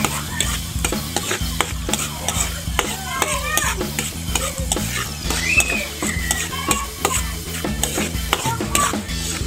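Metal spatula scraping and clicking against a metal wok over and over, stirring garlic and onion frying in oil, with a light sizzle underneath.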